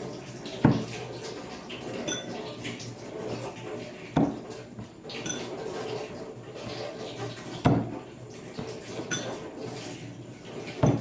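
Kitchen knife knocking on a cutting board as chillies are cut: four heavy knocks about three and a half seconds apart, with lighter clinks of utensils between them.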